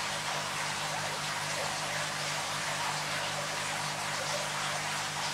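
Steady hiss, a little like running water, over a low electrical hum, unchanging throughout.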